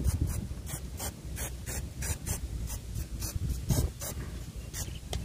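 Aerosol spray paint can hissing in many short, quick spurts, several a second.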